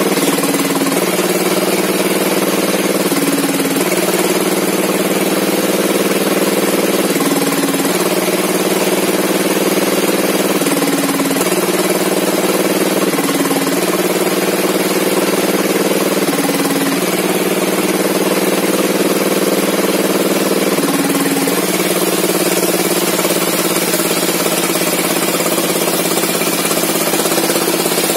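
A small engine running steadily, its pitch stepping briefly every few seconds.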